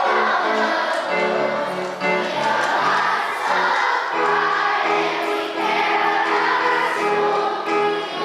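Children's choir singing a school song together with musical accompaniment.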